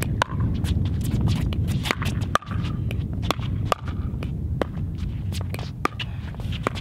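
Pickleball rally: paddles striking a hard plastic ball back and forth, with ball bounces on the court, a sharp pop every half second to a second. A steady low rumble runs underneath.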